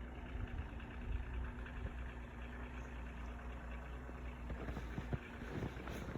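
A vehicle engine running steadily with a low, even hum, with a few knocks and rustling near the end.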